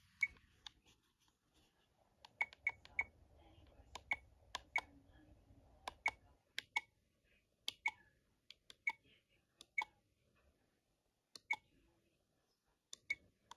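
Buttons on a compact digital camera pressed one after another while its settings menu is scrolled. About twenty small, sharp clicks come irregularly, with a pause of a second or so near the end.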